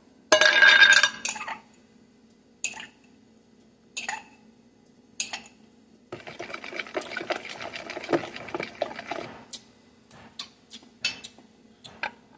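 A metal kitchen knife clattering against a glass jar's metal lid about a second in, then single clinks, then several seconds of the knife scraping sugar out of the glass jar, with scattered taps and clinks after.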